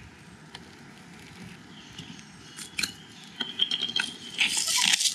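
Hand pepper grinder being twisted: a few light clicks as it is picked up, then a fast, dense run of crackling clicks as the peppercorns are ground, starting about four and a half seconds in.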